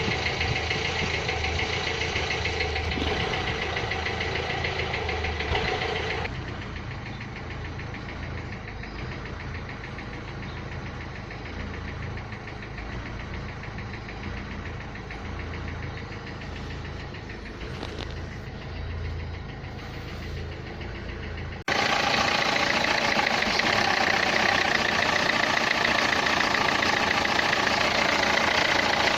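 Renault Clio III 1.5 dCi four-cylinder common-rail diesel engine running at idle with an engine noise that the owner puts down to the injectors. The sound drops abruptly about six seconds in and comes back louder about twenty-two seconds in.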